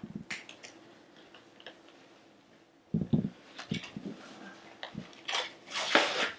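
Cardboard box and packaging being handled: scattered light clicks and taps, a soft thump about three seconds in, and a louder rustle near the end.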